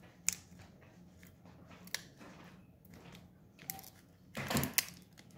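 Foil wrapper of a Pokémon card booster pack crinkling in the fingers as they pick at its sealed edge: a few sharp crackles, then a louder burst of crinkling about four and a half seconds in.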